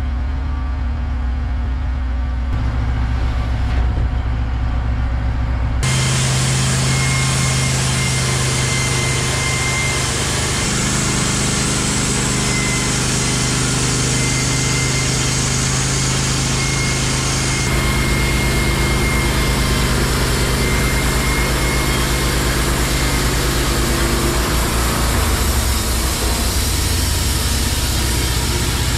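Wood-Mizer LT15 Wide portable band sawmill running, its engine humming steadily while the band blade saws through an eastern white pine log. A steady hiss joins the hum about six seconds in.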